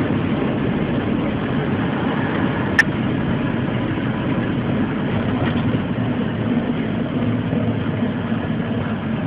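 Steady engine and road noise of a moving car, heard from inside its cabin, with one sharp click nearly three seconds in.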